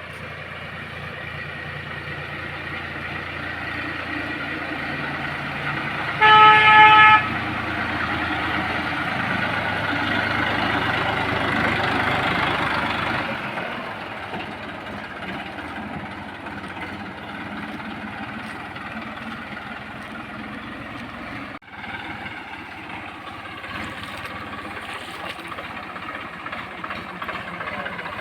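Massey Ferguson 1035 tractor's three-cylinder diesel engine running under load while disc ploughing. The engine grows louder, then eases back about thirteen seconds in. A horn sounds once for about a second, roughly six seconds in, and is the loudest sound.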